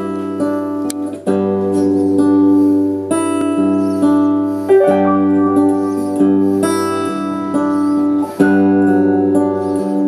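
Acoustic guitar and piano playing a song's instrumental introduction, a new chord struck about every couple of seconds.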